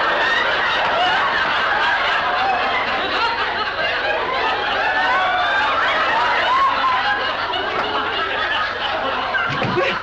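Sitcom studio audience laughing, a sustained wave of many people chuckling and laughing together.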